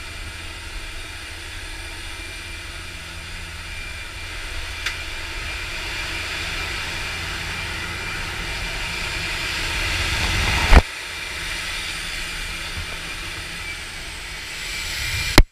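Steady aircraft engine and rushing wind noise inside a skydiving jump plane's cabin, with a low rumble, growing louder toward a single sharp, loud knock about eleven seconds in. Another sharp spike comes right at the end, where the sound cuts off abruptly.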